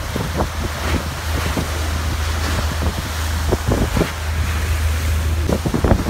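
Strong wind buffeting the microphone in irregular gusts as a steady low rumble, over choppy lake waves breaking and splashing against a wooden pier.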